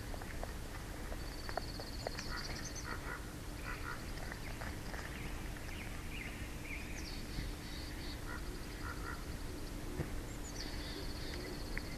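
Birdsong around a bald eagle nest: a small bird's rapid, high trill of quick identical notes, repeated several times for a second or two each, with shorter chirping calls between. A faint steady low hum lies under it.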